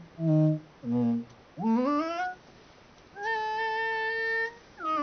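Voice-like electronic tones from a synthesizer played by tilting and moving a 3-axis motion sensor. A few short notes give way to a rising glide, then one long steady higher note, and the pitch falls away near the end.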